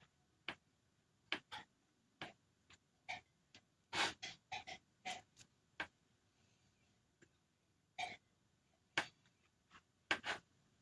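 A small hand squeegee scraping paste across a silkscreen stencil transfer laid on a card, in short, uneven strokes with a pause of about two seconds near the middle.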